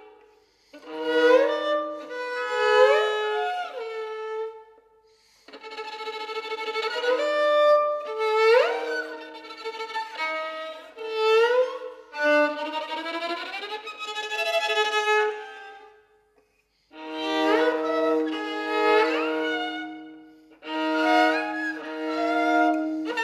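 Solo violin playing a contemporary concert piece: held notes, often two at once, with pitches sliding upward, in phrases broken by short pauses, the longest about 16 seconds in.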